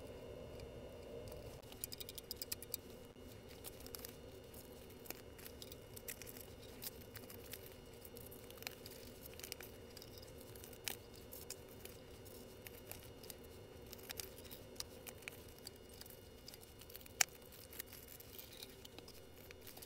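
Faint scattered clicks and paper rustling from sandpaper strips being handled and snapped into metal binder clips, over a faint steady hum. The clicks bunch up a couple of seconds in, and one sharper click comes near the end.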